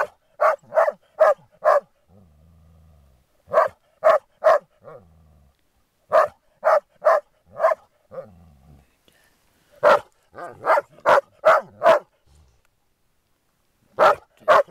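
Groenendael (Belgian Shepherd) dogs barking in quick volleys of four to seven barks, with low growls in the pauses between volleys, in a resource-guarding play game over an object.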